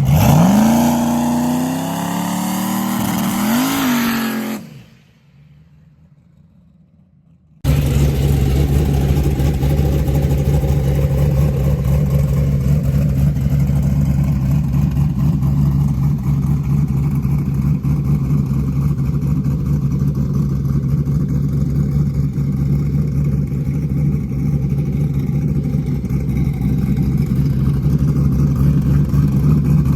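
A car engine revs up and falls back over the first few seconds, then fades out. After a short quiet spell it cuts suddenly to a steady, loud engine drone that holds an even pitch for the rest.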